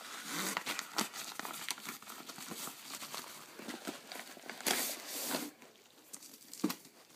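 Yellow padded paper mailer crinkling and rustling as it is handled and opened by hand, in a dense run of small crackles with a louder rustle about five seconds in. After that it goes quieter, with a few light clicks as the book comes out.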